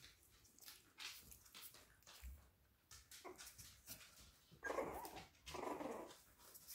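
Yorkie puppy making two short, rough vocal sounds in quick succession near the end, over light scattered clicks.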